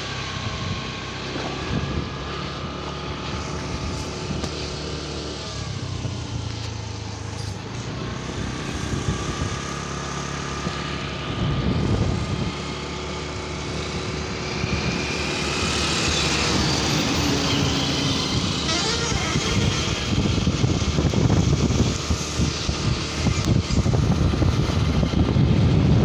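Road traffic heard from a moving motorcycle: the bike's engine running steadily under rushing wind, with trucks and other vehicles going past. The noise grows louder in the second half.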